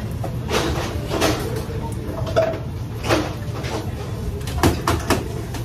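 Restaurant kitchen clatter: metal cookware and utensils knock and clank against each other several times, a few with a short ring, over a steady low rumble.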